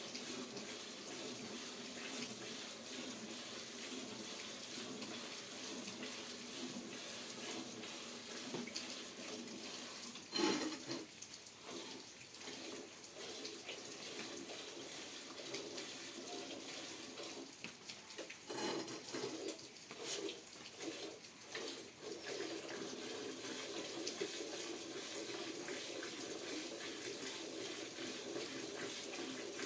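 Water running steadily in a stream, splashing into a container, with a sharp knock about a third of the way in and a few clattering handling noises past the middle.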